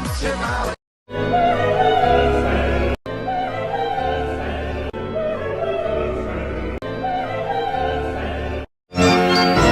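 Music with a sung melody held on wavering, vibrato notes over a steady low accompaniment, in an operatic style. It breaks off into silence twice, about a second in and near the end, as one clip cuts to the next.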